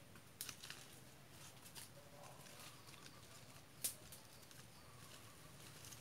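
Mostly quiet, with a few faint scattered snaps and rustles of a rambutan fruit cluster and its leafy twigs being handled, the sharpest click about four seconds in.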